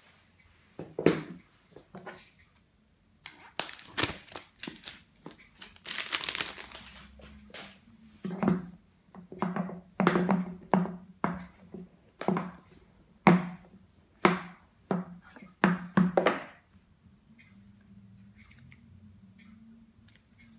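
An iPhone X retail box being unwrapped and opened by hand on a wooden table: a string of taps, knocks and clicks from the cardboard being handled. There is one longer tearing, crinkling sound about six seconds in as the wrap comes off. The handling stops about three quarters of the way through, leaving only a faint low hum.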